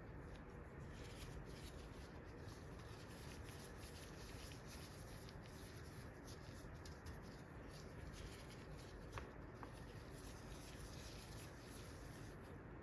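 Faint steady air-conditioner hum, with light tapping and rustling of hands at work over it and one small clink about nine seconds in.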